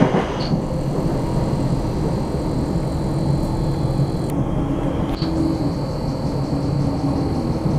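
Interior running noise of an 8510-class DART electric multiple unit at speed: a steady rumble of wheels on the track, with a thin high whine that drops out for about a second halfway through.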